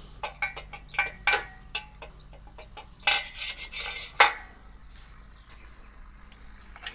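Metal hardware clinking and rattling: a quick run of light metallic knocks with brief ringing over the first four seconds, then it stops.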